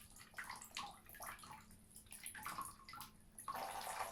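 Water dripping and splashing in a washbasin, then water running steadily from about three and a half seconds in.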